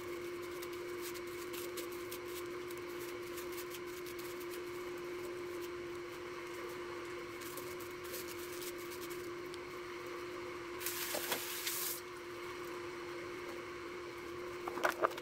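A hand working chicken pieces through dry, crumbly breading mix: faint gritty rustling and crackling, over a steady hum. About eleven seconds in, a louder rustle lasts about a second.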